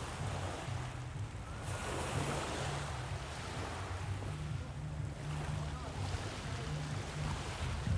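Wind buffeting the microphone as a low, uneven rumble, over the hiss of small waves washing onto a shingle beach, which swells about two seconds in and again about five seconds in.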